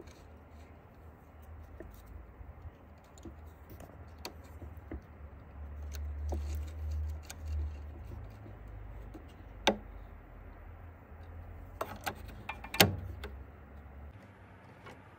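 Small metallic clicks and ticks from a MIG welder's wire feed mechanism as the welding wire is threaded across the drive roll and the pressure roller is closed onto it. There are two sharper clicks, about ten and thirteen seconds in, over a low rumble.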